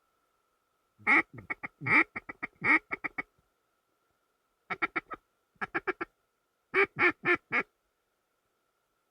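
Mallard duck call blown in quacking runs: a loud run of about a dozen quacks that tapers off, then a quicker, softer run, then four loud quacks near the end.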